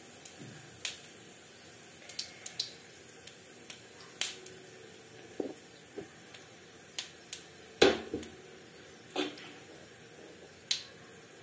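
Cumin seeds spluttering in hot oil in a kadhai: scattered sharp pops and crackles at uneven intervals over a faint steady sizzle, the sound of the jeera tempering as the oil is hot enough.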